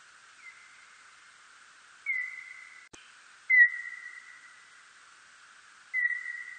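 Birdlike noctule bat calls, brought down to an audible whistle-like pitch: four short calls, each a quick drop in pitch into a steady tone that fades away over about a second, the third the loudest, over a faint hiss. A brief click about three seconds in.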